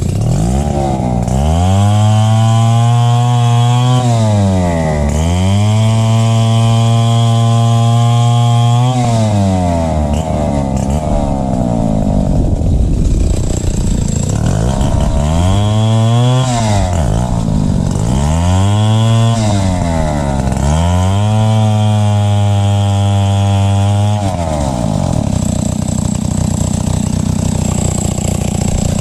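Gasoline chainsaw revved up to full throttle and held there for a few seconds at a time, about five times, while cutting into a felled rubber-tree log. Between cuts and near the end it drops back to a low, uneven idle.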